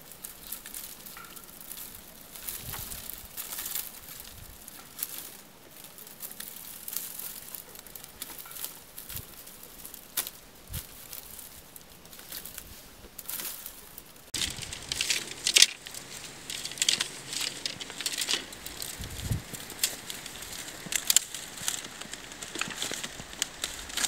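Bundles of dry grass stalks rustling and crackling as they are handled and pushed into place. The crackles grow louder and sharper about halfway through.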